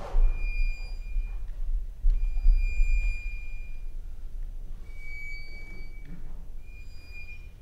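Sparse contemporary chamber music: four high held notes of about a second each, separated by short pauses, over a low rumble.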